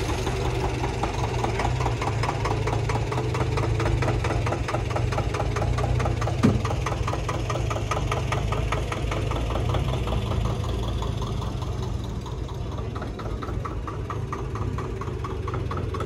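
An engine running steadily with a fast, even knocking beat over a low hum. There is a brief sharp sound about six and a half seconds in, and the beat softens for a couple of seconds after about twelve seconds.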